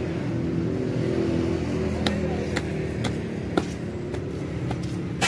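An engine running steadily, with sharp clicks about twice a second from about two seconds in.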